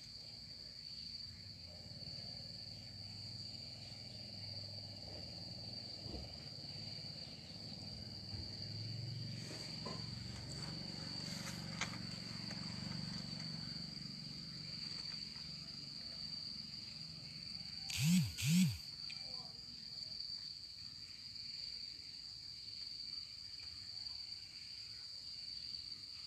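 Insects keeping up a steady high-pitched drone. About two-thirds of the way through, an animal gives two short, loud calls in quick succession, each rising and then falling in pitch.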